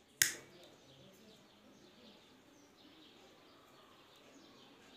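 A lighter struck once, a short sharp scrape-click just after the start, lit to melt wax into the seal seat; after it only a faint steady background.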